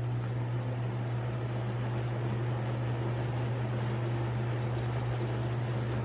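McGraw-Edison Thin 'n Lite 20-inch box fan running: a steady low motor hum with the even rush of air from the blades.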